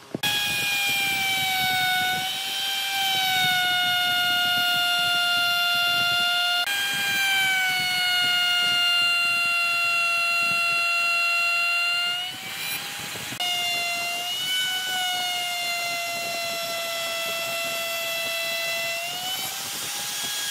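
Electric power tool's motor whining steadily against the wood, its pitch sagging under load and rising again as the load eases. The sound breaks off and restarts abruptly twice.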